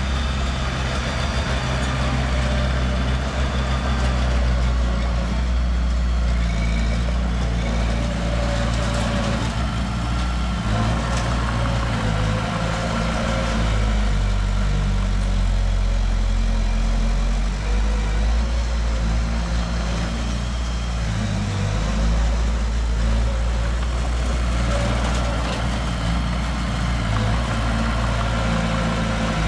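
A heavy construction machine's diesel engine running steadily at a low pitch, its speed shifting slightly now and then.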